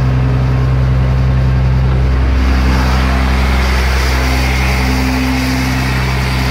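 Caterpillar 3116 turbo diesel of an LMTV truck running steadily at raised idle, turned up to help the central tire inflation system pump up the tires. About two and a half seconds in, a higher hiss joins the engine sound.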